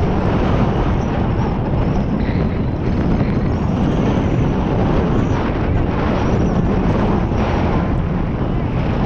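Wind rushing over a GoPro's microphone during a ski run downhill, a loud steady rumble, mixed with the hiss of skis sliding through powder snow.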